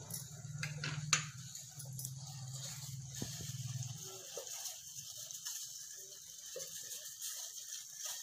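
Gas stove burner on high flame under an empty pot: a low steady rumble that stops about four seconds in, leaving only a faint hiss, with a couple of light clicks about a second in.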